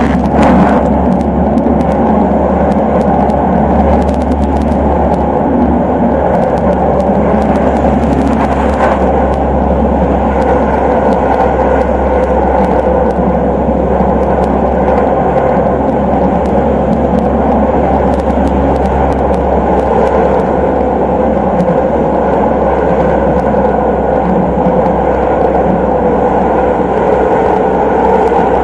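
Tram running at speed, heard from inside the passenger compartment: a steady loud rumble of wheels on the rails over a low motor hum, with a few sharp clicks in the first several seconds.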